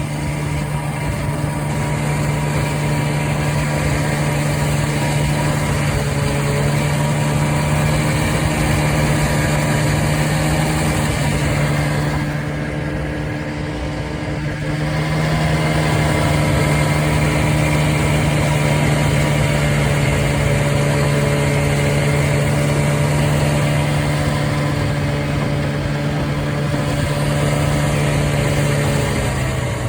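Arctic Cat Puma snowmobile's fan-cooled two-stroke engine running at a steady pitch, easing off about twelve seconds in, picking back up a few seconds later, and dropping in pitch near the end.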